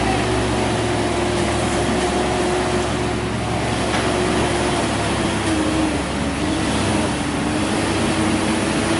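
Heavy truck's diesel engine running hard under load on a slippery climb, a steady drone over road noise whose pitch wavers about six seconds in.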